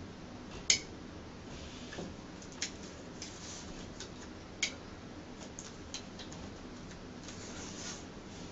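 Scattered sharp ticks and soft rustling as a cut strip of self-adhesive fabric wallcovering is lifted and peeled off the overlap seam; the two loudest ticks come about a second in and near the middle.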